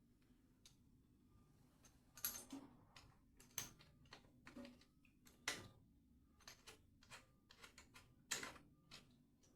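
Faint, irregular light clicks and knocks of tools and tap fittings being handled, starting about two seconds in and coming every half second or so.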